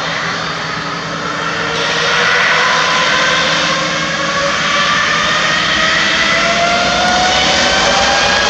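Spirit Airlines Airbus A320neo with Pratt & Whitney PW1100G geared turbofans on its takeoff roll, the engines at takeoff thrust. A loud jet rush with a whine that rises steadily in pitch as the jet accelerates down the runway; the noise swells about two seconds in.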